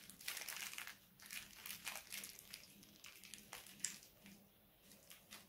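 Small plastic packaging being crinkled in the hands as a packed part is handled and unwrapped: quick, irregular crackles that thin out over the last couple of seconds.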